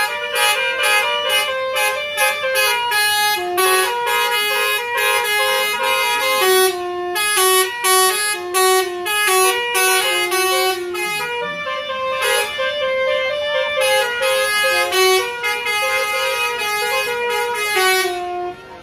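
Basuri musical bus horn playing a tune of quick stepped notes over and over, with a short hiss between notes; it cuts off abruptly near the end.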